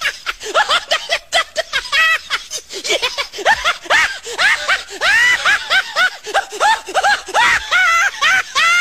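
High-pitched human laughter: a rapid snickering cackle of many short rising-and-falling notes, several a second.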